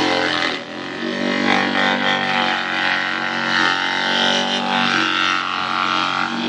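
A small wood-bodied forage chopper machine running steadily with a droning motor hum while papaya leaves are fed in and shredded. The rough chopping noise rises and falls, with a brief dip in level just after the start.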